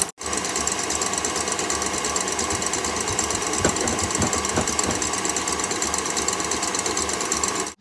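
Stand mixer with a wire whisk whipping egg whites in a stainless steel bowl, its motor running with a steady fast whirr and the whisk rattling around the bowl. It breaks off for an instant just after the start and stops near the end.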